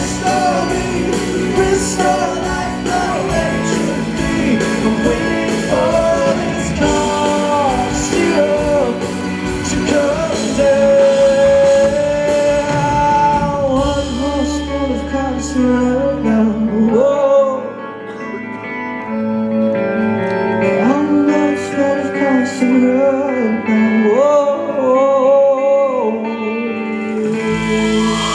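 Live rock band music with a melody line that bends and slides in pitch over the band. The low bass end drops out about two-thirds of the way through, and the melody carries on over lighter backing.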